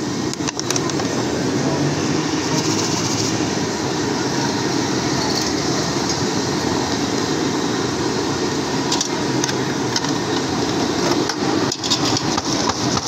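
Steady din of a roadside street-food stall: deep-fat fryers of chips and street traffic blending into one even noise. A few short clicks and clatters of utensils come through, briefly near the start and again about nine and twelve seconds in.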